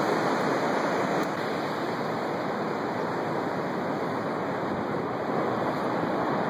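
Steady wash of ocean surf, an even rushing noise with no distinct events.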